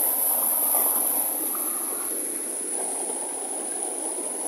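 Muddy floodwater rushing down a gully, a steady rushing noise, with a steady high-pitched whine above it.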